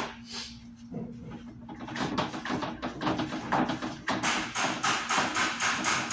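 Hands rubbing back and forth over a round sign panel on a workbench. The strokes start about two seconds in and settle into an even rhythm of about three strokes a second.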